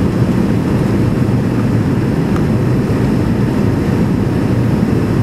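Cabin noise of an McDonnell Douglas MD-80 climbing out after takeoff: the steady low rumble of its rear-mounted Pratt & Whitney JT8D turbofans and the rush of air past the fuselage.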